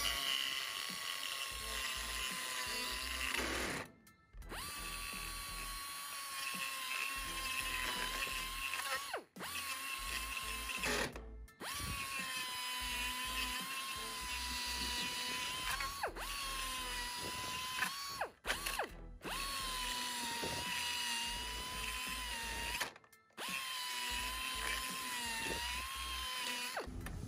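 Quarter-inch pneumatic straight die grinder spinning a burr against sheet metal to open up a hole: a steady high whine that wavers slightly in pitch as the burr bites. It runs in several stretches, cut off by about five sudden short gaps.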